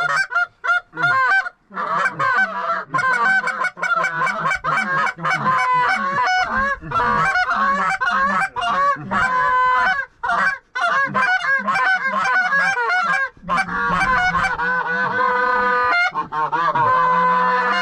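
Goose honking and clucking, rapid and overlapping, loud and nearly continuous with a few brief breaks.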